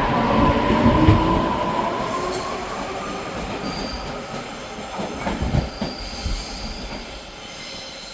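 EMU500 electric commuter train running past and away, its rumble fading steadily. A few clicks come about five seconds in, and a faint high wheel squeal sounds in the second half.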